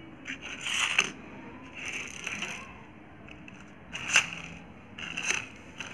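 Small plastic toy race car pushed by hand across a concrete floor, its plastic wheels and body scraping in four short bursts.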